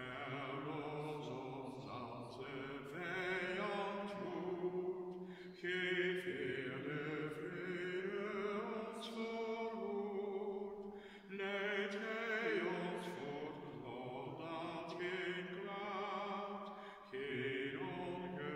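A man's solo voice singing a slow Dutch liturgical chant, the sung psalm response, in long held notes with vibrato and short breaks between phrases.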